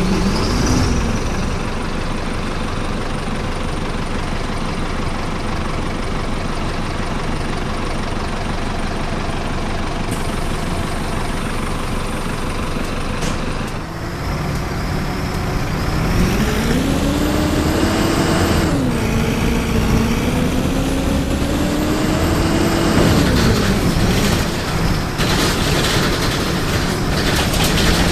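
Mercedes-Benz OF-1418 bus diesel engine running steadily. From about halfway the revs climb, dip briefly, climb again and fall back.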